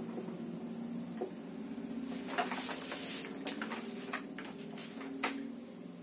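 Felt-tip marker scratching and tapping on a whiteboard as words are written: short scratchy strokes, the longest about two to three seconds in, then a run of small ticks. A steady low hum runs underneath.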